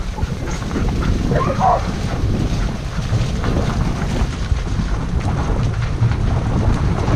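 Wind buffeting the microphone of a moving action camera over a steady low rumble of a dog-drawn rig rolling along a gravel road. About a second and a half in, a dog gives a short yelp.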